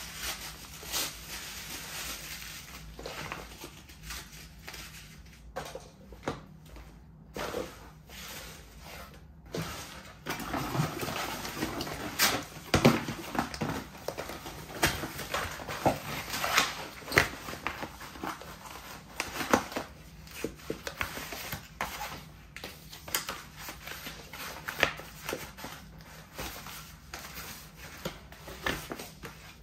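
Paper and cardboard packaging being torn by hand and crushed underfoot: irregular crackling, crunching and rustling, busier and louder from about a third of the way in.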